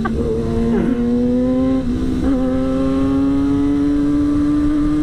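Yamaha R6 sport bike's inline-four engine under way, its pitch climbing steadily as it accelerates, with brief dips about one and two seconds in.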